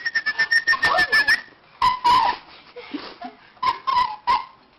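A person whistling a held, slightly wavering high note to call a dog for about the first second and a half, followed by short high wavering whines from the dog, with scattered clicks.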